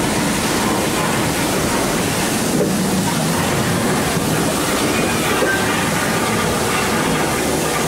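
Special effects of a theme-park earthquake ride during the quake scene: a loud, steady rumbling roar as sparks fall and propane fire jets burst up through smoke.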